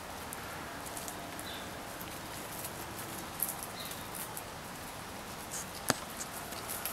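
Backyard chickens pecking popcorn off bare dirt: soft scattered pecking clicks over a steady outdoor hiss, with a few faint high chirps and one sharp click about six seconds in.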